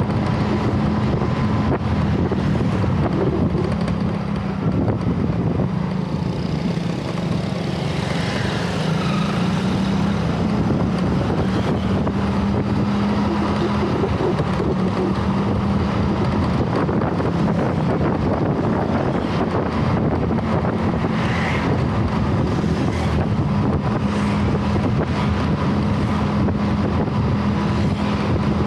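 Wind rushing over the microphone of a moving vehicle on the road, over a steady engine drone.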